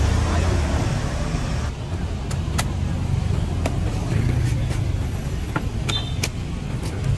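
Low steady rumble of street traffic, with a series of sharp knocks from a cleaver chopping into a green coconut starting about two seconds in.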